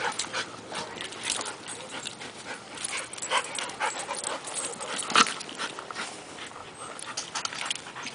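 Two dogs play-wrestling, a Rottweiler mix and a grey shaggy dog: irregular scuffling, breathing and short dog noises, with one louder sharp sound about five seconds in.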